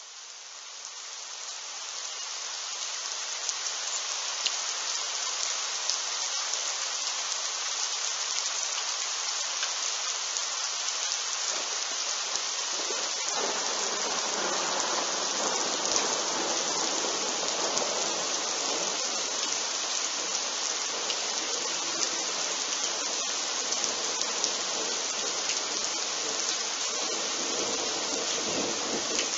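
Steady heavy rain falling, with a long rolling rumble of thunder from a lightning strike about 2 km away that sets in about twelve seconds in and carries on to the end.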